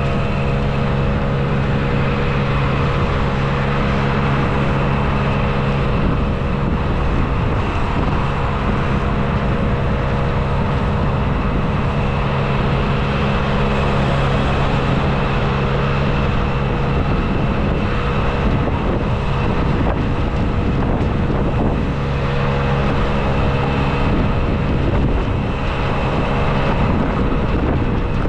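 Wind buffeting the microphone of a camera on a moving bicycle, over steady city traffic. A steady low hum stops about six seconds in and comes back about 22 seconds in.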